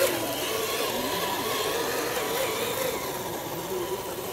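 Electric motor and gearbox of a scale RC Land Rover Discovery truck whining as it crawls through wet mud, the pitch wavering up and down with the throttle.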